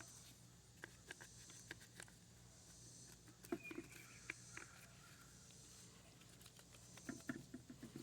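Near silence with faint, scattered ticks and soft clicks of a brush scrubbing a plastic lawn mower part, with small clusters about halfway through and near the end.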